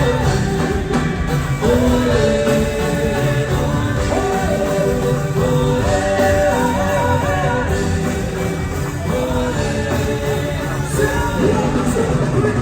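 Music with a singing voice, loud and continuous.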